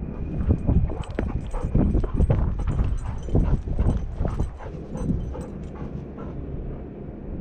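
Golden retriever galloping, its paws striking the dirt in a quick, uneven rhythm of about three or four footfalls a second, heard through a camera strapped to its back, with wind rushing over the microphone. The footfalls die away about five and a half seconds in.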